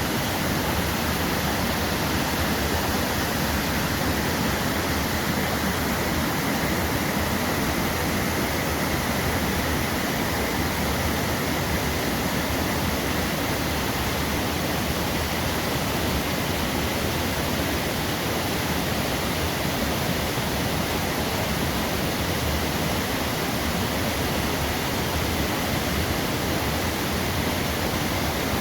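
Waterfall: water falling and rushing over rocks in a steady, unbroken roar.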